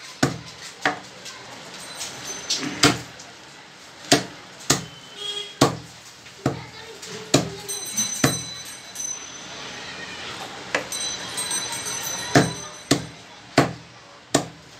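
Butcher's cleaver chopping raw chicken into small pieces on a wooden log block: a series of sharp, separate thuds at an uneven pace, about one a second.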